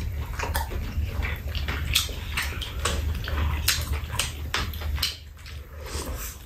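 Close-up eating sounds of two people eating fried rice and soup with spoons: wet chewing and slurping, with scattered light clicks of spoons against bowls.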